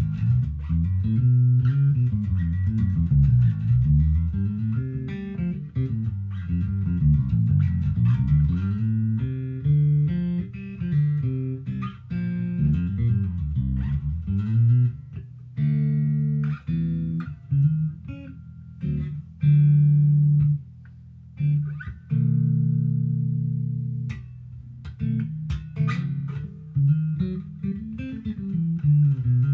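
Squier six-string electric bass played solo: quick rising and falling runs of notes, giving way about halfway to a stretch of held notes with short breaks, then running lines again near the end.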